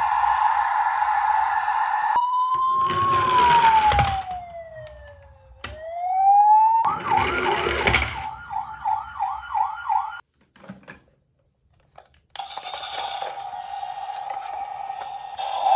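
Toy ambulance's electronic siren sounding, cycling through patterns: a steady tone, then a slow wail that falls and rises, then a fast warbling yelp. It cuts out for about two seconds near the ten-second mark and comes back as a steady tone, with short bursts of rushing noise along the way.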